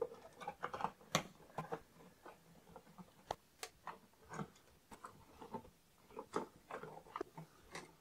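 Faint, irregular small clicks and scrapes of a screwdriver loosening the brass terminal screws on a toggle light switch, the wires being worked off the terminals.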